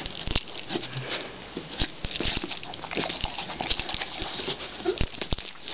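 Staffordshire bull terrier chewing popcorn: a run of irregular short crunches and clicks.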